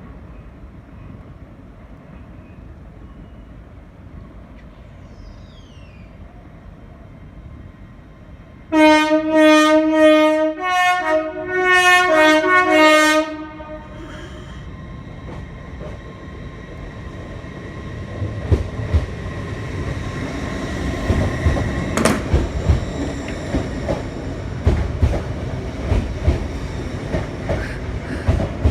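LNER Azuma (Hitachi Class 800-series) train sounding its two-tone horn in a string of short blasts and then two longer ones, about four seconds in all. The train then runs past at speed, its wheels clattering rhythmically over the rail joints, with one sharp crack partway through.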